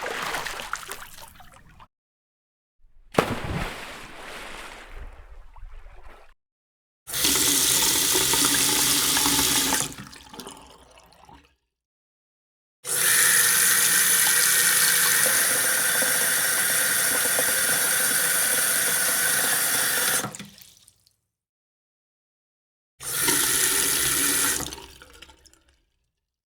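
A string of separate water sound effects with silence between them: two short water sounds that start sharply and die away, then three stretches of steady running water like a tap, about three, seven and two seconds long, each starting and stopping abruptly.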